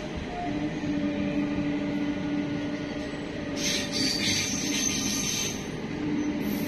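Indian Railways passenger coaches rolling past at speed: a steady rumble of wheels on the rails with a held low hum, and a thin high whine over it for about two seconds midway.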